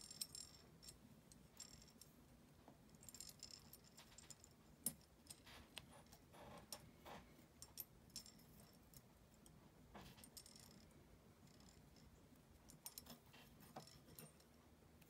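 Faint metallic clicks, ticks and light jingling from thin wire being bent and wrapped around the metal pegs of a Wig Jig pegboard, with scattered rustles and a sharper click about five seconds in.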